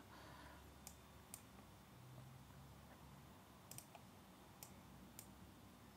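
Near silence: faint room tone with a handful of scattered, faint clicks from computer controls as photos are switched on screen.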